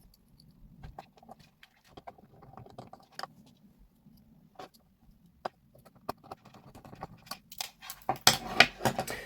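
Scattered light clicks and taps of small plastic parts being handled, as a 9-gram servo is fitted to a 3D-printed mounting plate, with a quick run of louder clicks near the end.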